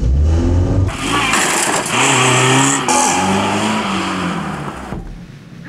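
Car engine revving hard as the car is driven off. Its pitch rises and falls, over a heavy low rumble at the start.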